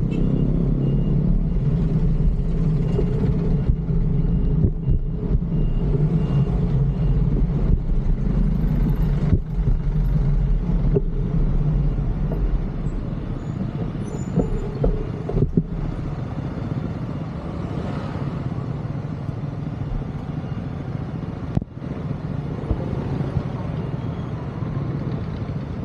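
City road traffic heard from a moving bicycle: the steady rumble of engines and tyres from vehicles around, with a faint, evenly repeated beeping over the first several seconds.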